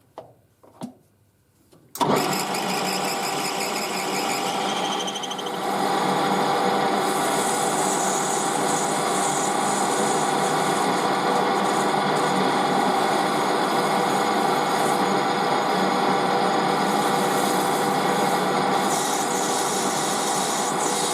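Metal lathe switched on about two seconds in and running steadily, a little louder from about five seconds in, with a parting blade taking a light 0.2 mm facing cut across a brass fitting.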